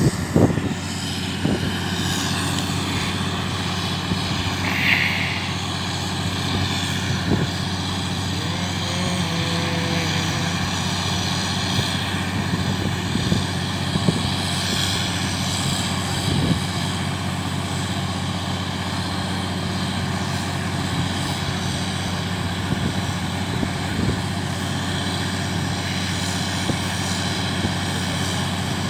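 Truck-mounted water well drilling rig running with a steady engine drone, and a few brief knocks now and then.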